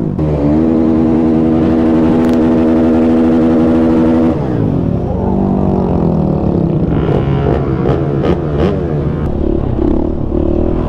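A dirt bike's engine running at a steady speed for about four seconds. Then, after an abrupt change, several small motorcycles idle and rev together, with a few sharp clicks.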